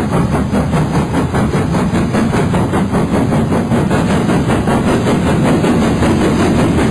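GWR Castle class four-cylinder steam locomotive running, its exhaust beats coming in a fast, even rhythm.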